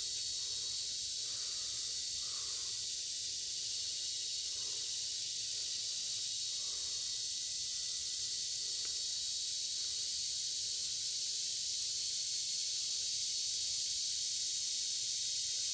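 Steady, high-pitched chorus of insects chirring.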